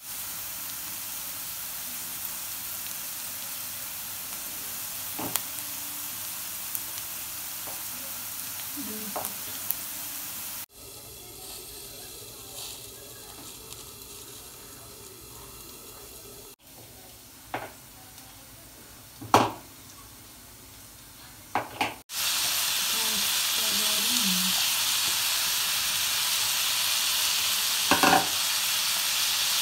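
Chopped onions and green peppers sizzling in oil in a frying pan. After a quieter stretch with a few sharp knocks, diced tomatoes sizzle more loudly in the pan, with a brief clank near the end.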